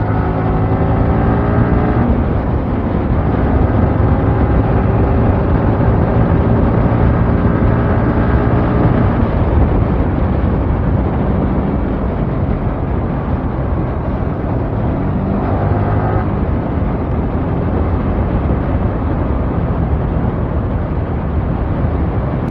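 Yamaha R15 motorcycle engine running under way, with wind rushing over the microphone. The engine note climbs and then drops with a gear change about two seconds in, and again about sixteen seconds in.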